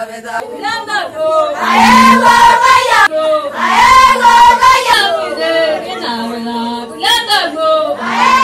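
Group of Samburu women singing a traditional song together, in repeated phrases that end on long held notes.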